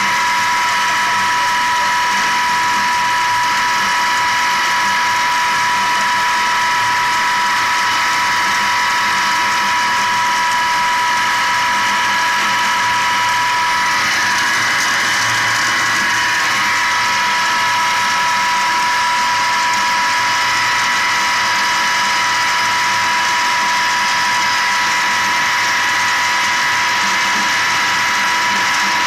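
An 18.5 kW Tesla-type five-disc sand pump running steadily under test, with a continuous high whine, as its discharge jet pours into a steel drum.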